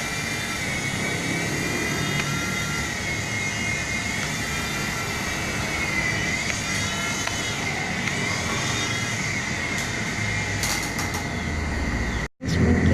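Remote-control toy helicopter's small electric motor and rotors whirring in flight: a steady high whine that dips and rises in pitch now and then, breaking off abruptly for a moment near the end.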